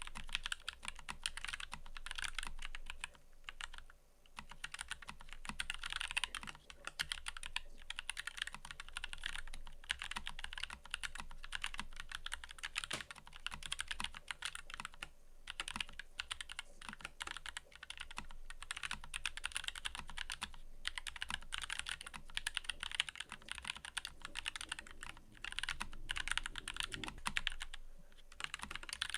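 Fast, continuous typing on a mechanical keyboard, a dense run of crisp key clicks broken by a few short pauses.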